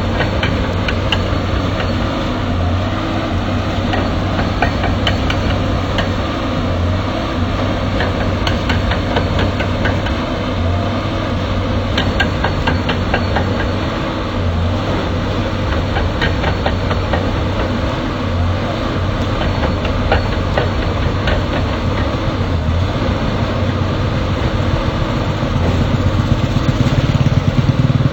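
Excavator's diesel engine running steadily, with quick metallic clicks and clanks through the middle; the engine gets louder near the end.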